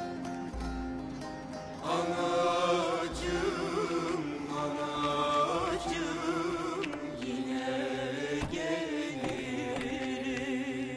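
Soundtrack music: plucked string notes for about the first two seconds, then a voice singing a slow, long-held melody with a wavering pitch over the accompaniment.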